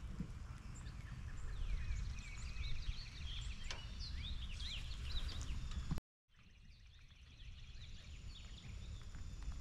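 Songbirds chirping and singing, many quick rising and falling calls over a low steady rumble. The sound cuts out abruptly for a moment about six seconds in, then the birds go on more faintly.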